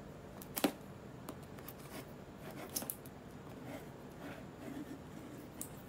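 Scissors snipping at a parcel's packaging: one sharp snip about half a second in, then lighter scattered snips and faint rustling.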